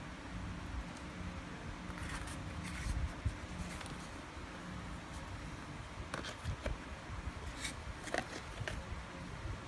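A few light clicks and scrapes over a steady low hum, bunched twice: once about two seconds in and again over the last few seconds.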